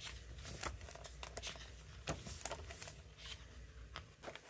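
Faint rustling and soft clicks of glossy photobook pages being handled and turned by hand, over a low steady hum.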